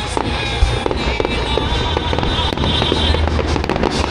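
Fireworks going off: a run of sharp bangs and crackles with deep thumps, thickest near the end, over music with a singing voice.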